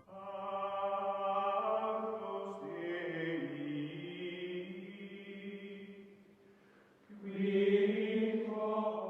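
Music of slow, held choir-like chords. It fades away about six seconds in, then a new chord swells in about a second later.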